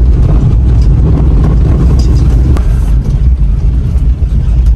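Car cabin noise while driving: a heavy, steady low rumble from the engine and tyres, with a few sharp knocks and rattles as the car runs onto a rough, unpaved track.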